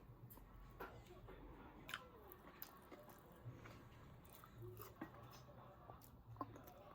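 Faint, scattered small clicks and taps over a near-silent background.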